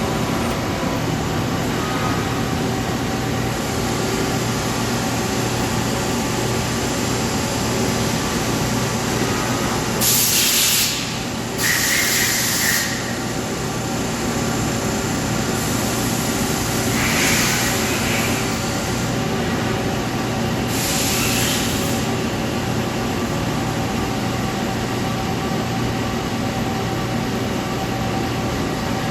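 Swiss-type CNC lathe running with a steady mechanical hum, broken four times by short hissing bursts in the middle stretch.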